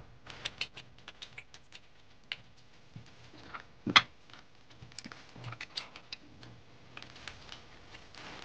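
Scattered small clicks and taps of forks and fingers on ceramic plates as people eat, with one louder knock about four seconds in.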